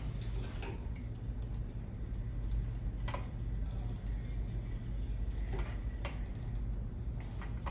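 Computer keyboard being pressed: a handful of separate, irregularly spaced keystrokes over a steady low hum.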